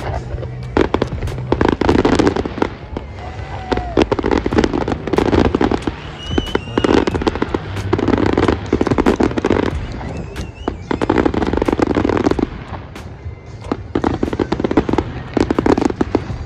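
Aerial fireworks display: shells bursting one after another with sharp bangs and crackle, in loud clusters about every second.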